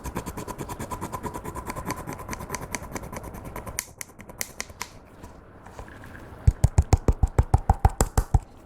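Clear slime being mixed and squished by hand, giving quick sticky clicks and pops several times a second. After a short thinner stretch about four seconds in, louder, deeper squelching pops come at about seven a second near the end.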